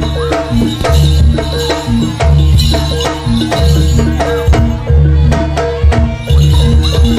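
Live jaranan gamelan accompaniment: hand drums and deep booming drum beats under repeated pitched metallic notes, keeping a steady, driving rhythm.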